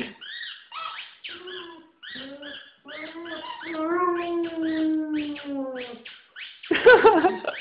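German Shepherd dog howling: a long held howl that slowly sinks in pitch, and a louder wavering howl near the end. Short high squeaks of a small squeaky ball toy come between the howls in the first seconds.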